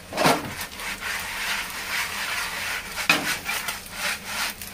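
Oil sizzling steadily under a carrot and Chinese chive pancake frying in a nonstick wok, with a few brief louder scrapes or bumps.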